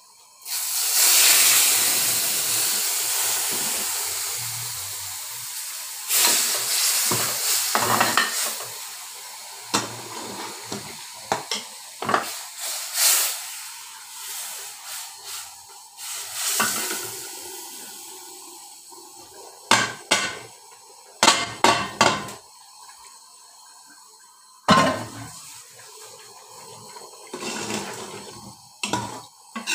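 Hot ghee tadka of browned onion and cumin seeds hitting the cooked dal in a pressure cooker pot: a sudden loud sizzling hiss about a second in that slowly fades over several seconds. After it, a metal spoon clinks and scrapes against the pot at irregular moments.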